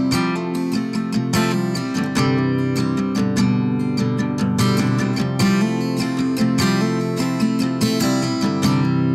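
Background music: strummed acoustic guitar at a steady pace.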